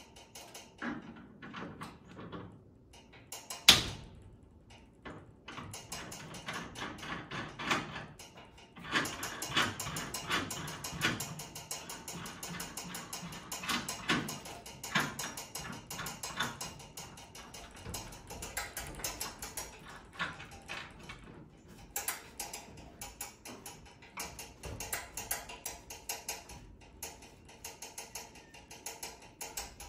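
Small metal clicks and clinks as a nut and washer are threaded and tightened by hand onto an all-thread rod, with one sharp metallic clank about four seconds in.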